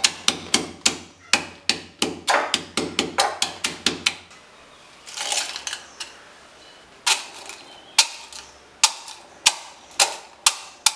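Stone pestle pounding crisp-fried dried tapioca pieces in a stone mortar: sharp knocks about three a second for four seconds, a pause with a brief scraping rustle as the pieces are pushed back in, then slower strikes resuming about seven seconds in.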